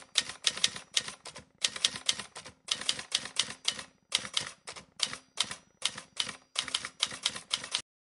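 Typewriter keys clacking in quick runs of strokes with short pauses between the runs, stopping suddenly near the end.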